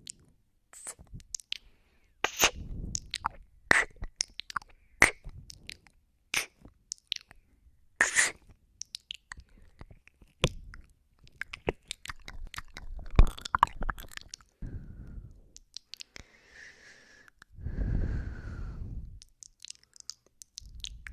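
ASMR mouth sounds close to a binaural microphone: a long irregular string of short, wet kisses and lip smacks. Near the end come three breaths, the last one long and the loudest.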